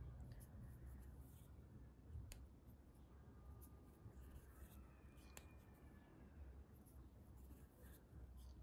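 Near silence with scattered faint ticks and rustles of hand needlework: a sewing needle and thread being worked into needle-lace knots.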